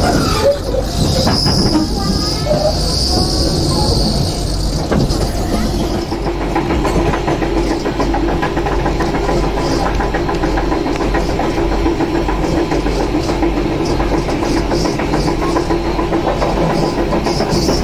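Passenger train running along the track, heard from inside the carriage: a steady rumble and rattle of the wheels on the rails, with a high hiss over the first few seconds.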